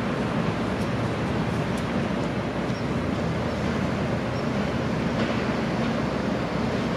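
Electric train running along the track: a steady rumble of wheels on rails.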